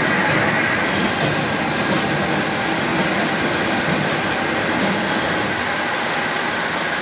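Horizontal milling machine cutting metal under hand feed: a steady machine noise with a continuous high-pitched squeal from the tool in the workpiece.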